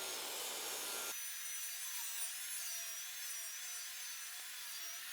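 Table saw ripping a board lengthwise, heard faintly. About a second in, a faint whine joins the steady hiss and wavers in pitch as the wood is fed through.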